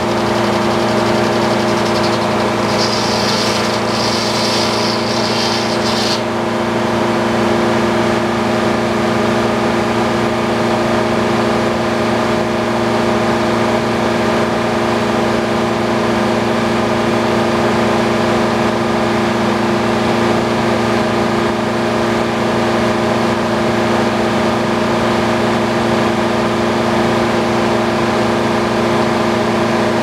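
Old circular sawmill running between cuts: its power unit runs steadily, turning the big circular saw blade free through flat belts and pulleys. A brief higher hiss comes in about three seconds in and stops about three seconds later.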